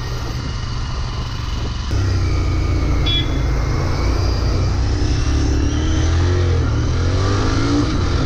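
Royal Enfield Continental GT 650's parallel-twin engine running while riding. It gets louder about two seconds in, and its pitch rises in the latter half as the bike accelerates.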